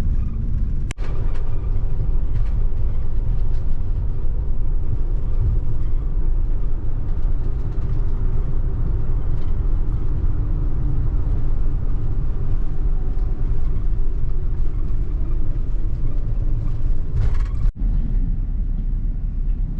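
Steady low rumble of engine and road noise inside a moving vehicle, with brief dropouts about a second in and near the end.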